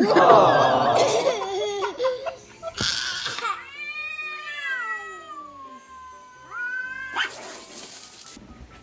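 A cat yowling: a loud wavering yowl at the start, then a long drawn-out yowl that slides down in pitch and turns up again near its end.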